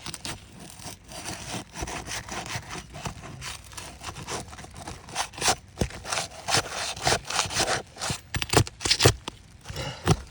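Asphalt roof shingles being pried up and worked loose: a continuous rough scraping and rasping, with a run of sharp clicks and snaps in the second half as the shingle tabs are bent back.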